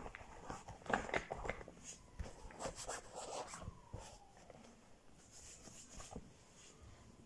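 Scattered clicks, taps and rustles as makeup items and a cotton pad are handled in a zippered cosmetic case close to the microphone, busiest in the first half.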